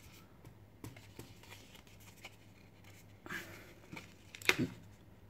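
Stiff cardboard warranty-card sleeve being handled and opened: faint scattered clicks and rubbing of card, a soft rustle a little past three seconds, and a sharp tap about four and a half seconds in.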